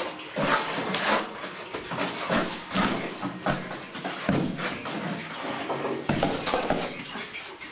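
Shovels and hoes scraping and scooping through a heap of gravelly concrete mix on a concrete floor, irregular rasping strokes about two a second, as concrete is mixed by hand.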